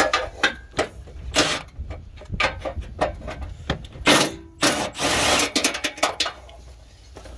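Socket wrench ratcheting and metal clinking as bolts are undone in a car's engine bay: a string of quick clicks, a sharp clank about four seconds in, and a longer rasping stretch around five seconds.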